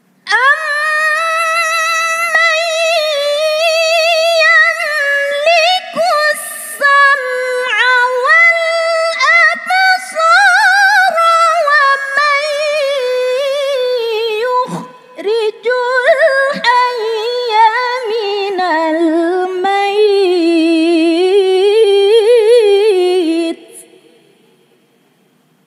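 A woman reciting the Quran in the melodic tilawah style: one long drawn-out phrase with wavering, sliding ornaments. It breaks off briefly twice past the middle and stops about 23 seconds in.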